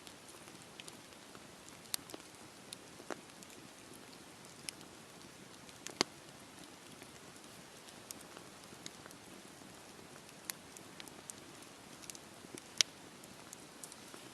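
Campfire burning: a steady low hiss with scattered sharp crackles and pops of the wood, two of them much louder, one in the middle and one near the end.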